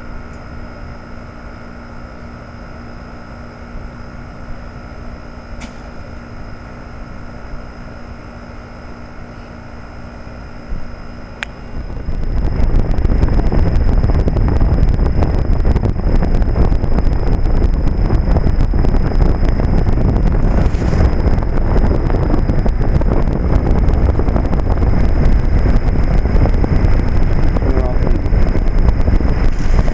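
Trane XL1800 heat pump outdoor unit running in cooling mode: a steady hum from its reciprocating compressor and fan. About eleven seconds in there is a sharp click and the hum stops. After that, a much louder rumbling wind noise fills the microphone for the rest of the stretch.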